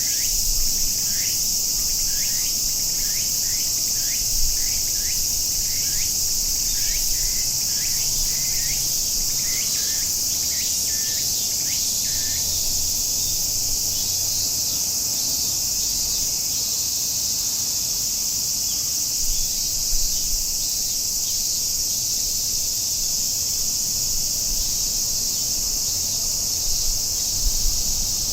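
Chorus of cicadas shrilling in a steady high drone. For the first twelve seconds or so a bird calls over it in short repeated notes, about two a second, then stops.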